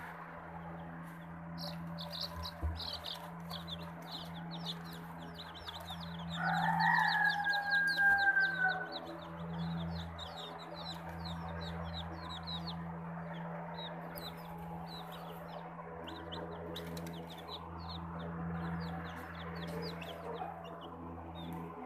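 Australorp chicks peeping constantly, a stream of short, high, falling cheeps. About six seconds in a rooster crows once, lasting about two and a half seconds. A steady low hum runs underneath.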